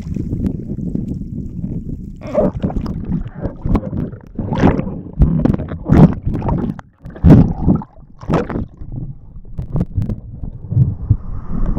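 Water splashing and gurgling over a camera at the water's surface, with wind rumbling on the microphone; from about two seconds in, a run of irregular loud splashes as the camera dips under and comes back up, easing off near the end.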